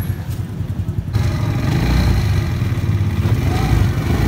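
Motorcycle rickshaw engine running with a steady low rumble, jumping abruptly louder about a second in.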